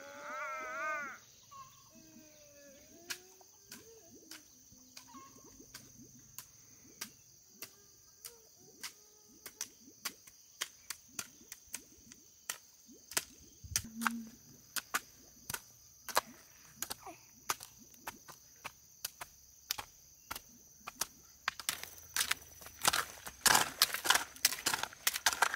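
A series of sharp knocks, sparse and irregular at first, then quicker and louder near the end, over a steady high-pitched hum. A brief wavering, crying-like voice sounds at the very start.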